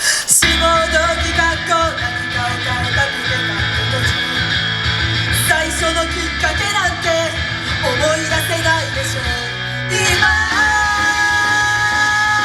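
Loud rock music starting abruptly at a song's intro at an idol concert, with guitar and a melodic lead line over drums; about ten seconds in it changes to long held notes.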